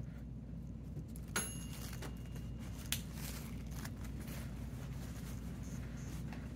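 A few sharp clicks of small metal hair clips being handled and fastened on freshly retwisted locs, one of them briefly ringing, over a steady low hum.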